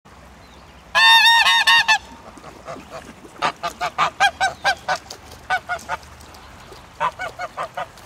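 A Pilgrim gander honking in a loud, rapid run of about six calls, his reaction to his mate crying out for him from a distance. Three shorter, quieter runs of honks follow.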